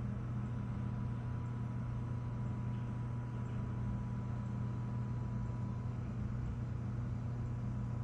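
Steady low drone of hydraulic excavators' diesel engines running at a construction site, with a faint steady whine above it.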